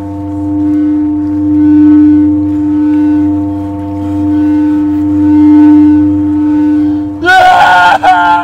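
A steady low droning tone that swells and fades about every two seconds, in the manner of a film-score drone. About seven seconds in, a loud, wavering scream from a man breaks across it for a little over a second.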